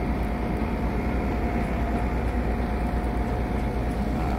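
A motor vehicle's engine running steadily: a constant low rumble with a thin, even whine over it.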